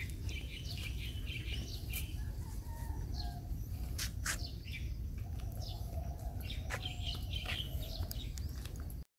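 Small birds chirping on and off over the rustle of someone walking through dry brush, with a few sharp twig-like snaps.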